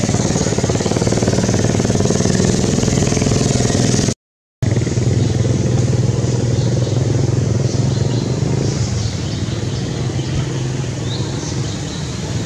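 A motor engine running steadily. The sound drops out completely for about half a second around four seconds in.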